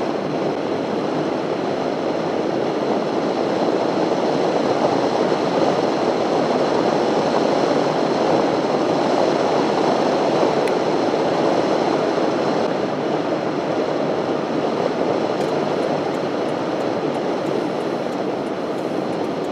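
Steady road and tyre noise heard inside a car moving at highway speed, an even rush with no horn or distinct engine note standing out.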